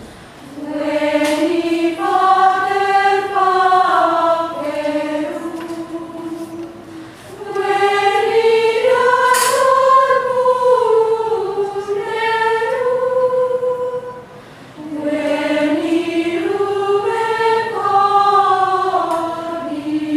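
Women's choir singing Gregorian chant in unison without accompaniment. The melody moves in three long, gently rising and falling phrases, with a short breath between each.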